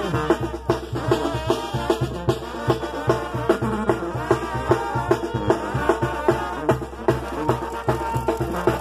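Live brass band with drums playing dance music over a steady drumbeat.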